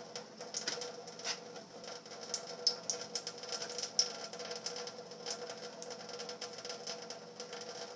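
Thin stream of tap water pattering into a stainless steel sink, with irregular sharp ticks and splashes as a cat paws at the stream.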